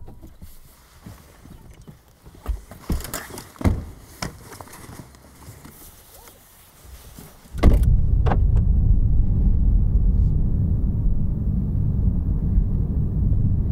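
Scattered clicks and knocks of people getting into a BMW saloon: door, seat and belt handling. About halfway through, the steady low rumble of the car running comes in suddenly and holds.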